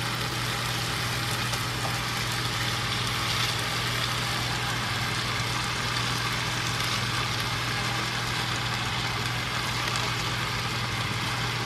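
Pan of shrimp and freshly added cabbage frying on a gas stove with an even hiss, over a steady low hum.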